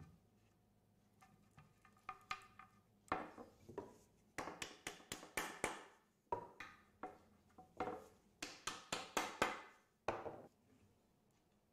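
Cherry board being handled on a wooden workbench: quick runs of sharp wooden taps and knocks, several clusters from about three seconds in until near the end.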